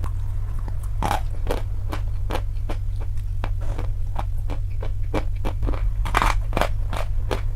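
Dry chalk being bitten and chewed close to the microphone: a run of sharp, crisp crunches, a few a second, loudest about six seconds in.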